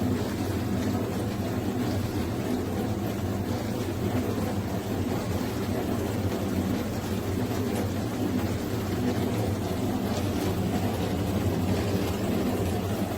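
A machine running steadily: a low hum with a noisy hiss over it, unchanging throughout.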